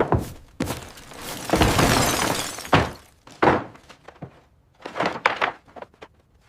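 A run of sharp knocks and cracking hits, with a rough, breaking noise about a second and a half long near the middle, and a few more knocks before it falls quiet near the end.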